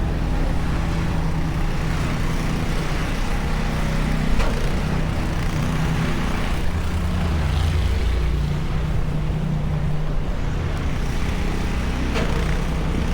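Snowy city street traffic: a low, steady engine hum from a nearby vehicle over the general noise of the road, with a couple of brief clicks.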